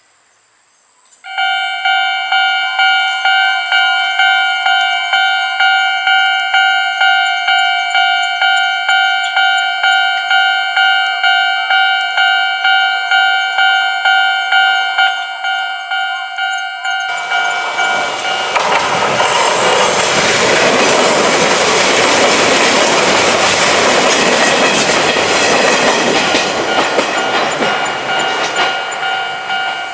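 Japanese level crossing's electronic warning bell starts about a second in, ringing about twice a second. From about 17 seconds an Izu-Hakone Railway Sunzu Line train runs over the crossing, its loud running noise covering the bell until near the end.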